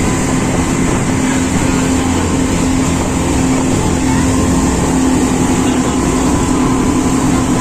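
A speedboat's gasoline engines running steadily under way: a loud, unbroken drone that holds one pitch.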